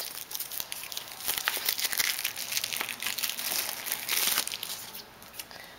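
Paper leaflets and booklets rustling and crinkling as they are handled and leafed through: a busy run of small crackles that dies down near the end.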